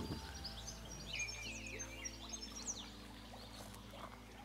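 Small birds singing outdoors in quick, repeated falling chirps, over soft sustained background music.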